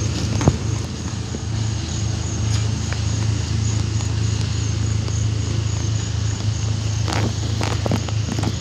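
CSX freight train of loaded lumber flatcars rolling past at a grade crossing: a steady low rumble with wheels clattering over the rail joints, and the crossing bell ringing in an even rhythm.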